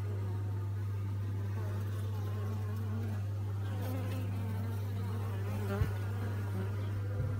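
Honeybees buzzing around an open hive, individual bees' wingbeat tones wavering in pitch over a steady low hum. Two short soft knocks come about six seconds in and just before the end.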